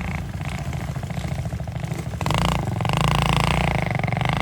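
Small ATV engine running, then throttling up and getting louder about two seconds in.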